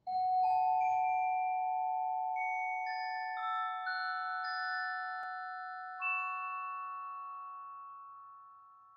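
Logo jingle of bell-like mallet-percussion notes struck one after another, each ringing on and overlapping into a sustained chord. The last note enters about six seconds in, and the whole chord slowly fades away.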